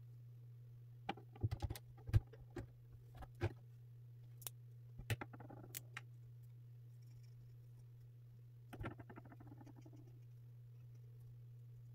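Milo marker tip scratching and tapping on paper: scattered sharp clicks and two short spells of quick scratchy strokes, one in the first few seconds and one near the end, over a steady low hum.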